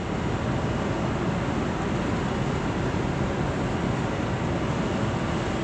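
Steady rumble and hiss on the open deck of a ship at sea: wind buffeting the microphone over the low drone of the vessel's machinery, with no let-up.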